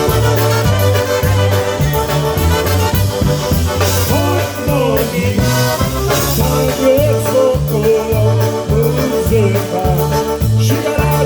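Live polka band playing an up-tempo tune, the bass stepping between notes on the beat under a melody line.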